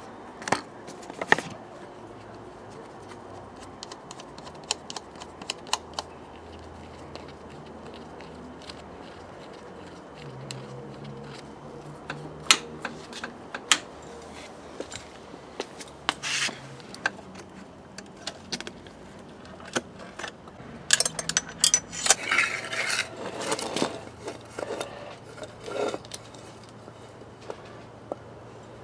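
Hand work on a motorcycle: scattered sharp metallic clicks and clinks and light scrapes as tools and metal parts such as the clutch lever and cable fittings are handled. The clatter is busier about three-quarters of the way through.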